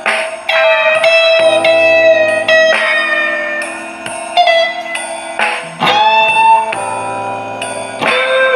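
Guitar playing slow, sustained melody notes over lower held notes, with an upward bend near the middle. A steady high tick about twice a second keeps time behind it.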